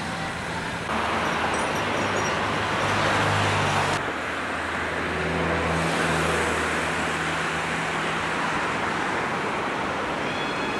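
Steady road traffic noise: car engines running and tyres on the roadway. It gets louder about a second in and changes abruptly about four seconds in, where the recording cuts, to a slightly quieter steady hum.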